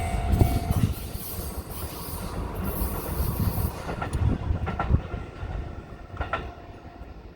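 Kintetsu Nagoya Line electric train passing a level crossing, its wheels clacking over rail joints. The sound fades steadily as the train moves away, with a few separate clacks near the end.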